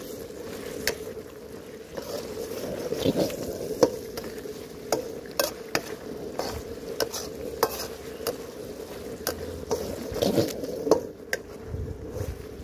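Steel Chinese ladle stirring and scraping chicken in sizzling, bubbling sauce in a carbon steel wok, with frequent sharp clinks of the ladle against the wok. Underneath is the steady noise of a high-power outdoor gas wok burner.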